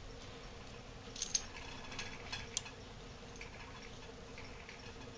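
A dog and a young pet groundhog play-wrestling on carpet: a few light clicks and scuffles about a second in and again around two and a half seconds in, over a steady low room hum.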